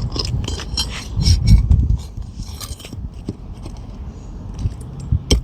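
Steel hook bar scraping and clicking against a stubborn roofing nail under an asphalt shingle as it is worked loose, with a few sharp metallic clicks near the end. A low rumble is loudest about a second in.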